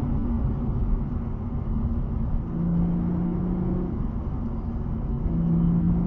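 Sports car's engine and tyre-and-road noise heard from inside the cabin while driving, the engine note holding steady and growing louder for a stretch about two and a half seconds in and again near the end.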